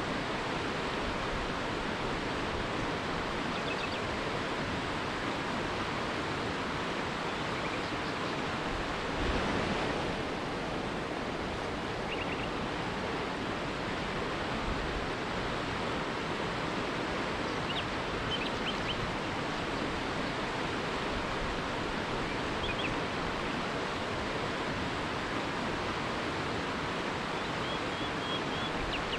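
River rapids rushing steadily, with a few faint, short bird chirps here and there over the water.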